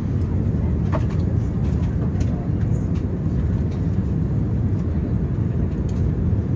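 Airliner cabin noise in cruise flight: a steady low rumble of jet engines and airflow.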